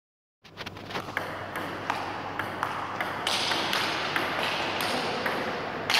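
Table tennis rally: the ball clicking sharply off the paddles and the table, two to three hits a second at an uneven pace, over a steady hiss of room noise.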